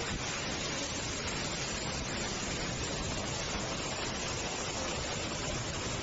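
Storm-force gust wind tearing through trees: a steady, dense rush of noise with the wind buffeting the phone's microphone.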